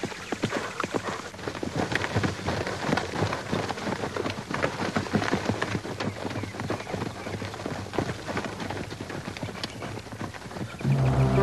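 Horse hoofbeats on dirt, a dense irregular clatter that fades toward the end. Music comes in just before the end.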